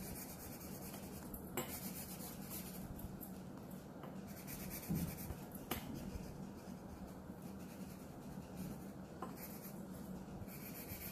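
Black colored pencil scratching across drawing paper as it fills in a narrow area, with a few light taps.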